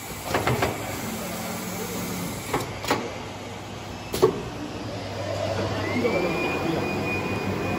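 A few sharp knocks and clicks, the loudest a little after four seconds, then a flatbed CNC knife cutter's vacuum hold-down blower starting up: a whine rises in pitch and levels off into a steady tone over a rushing hiss.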